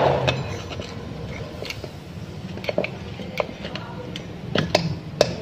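Steel screwdriver tips scraping and clicking against a Multicab cylinder head as carbon and old deposits are picked out of its ports: irregular sharp ticks and short scrapes, several in quick succession near the end.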